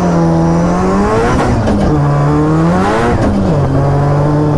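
Drift car engine running hard on track, its pitch holding, dipping and climbing back as the throttle is worked, then settling lower and steady a little past halfway.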